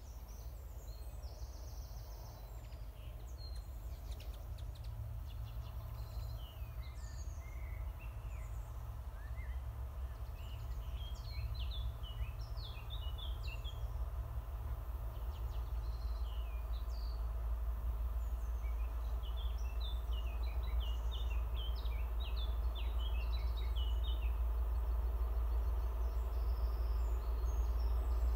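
Low rumble of a distant train approaching, growing steadily louder. Songbirds chirp in two short spells in the middle.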